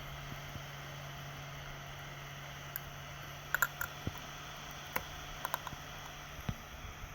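Steady low hum with a scattering of short sharp clicks and taps, a quick cluster about three and a half seconds in and more around five seconds in.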